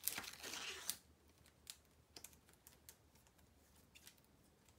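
A trading card being slid into a plastic card saver: a scraping rustle for about the first second, then a few faint light clicks and taps.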